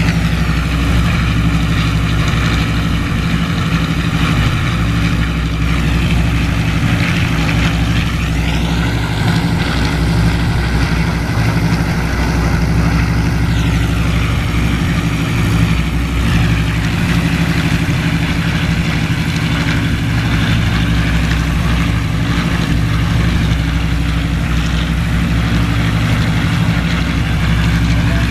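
Ilyushin Il-14T's ASh-82T fourteen-cylinder radial piston engines running on the ground with propellers turning, a steady deep drone. A higher whine rises about eight seconds in and falls back about five seconds later.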